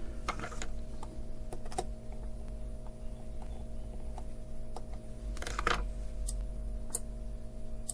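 Scattered small clicks and two brief rustles from hands working on a small circuit-board kit on the bench, over a steady low hum.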